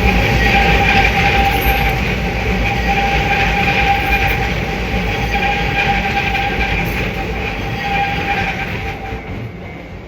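Keihan Keishin Line train passing, its steel wheels giving a steady high squeal over the running rumble; the sound fades away near the end.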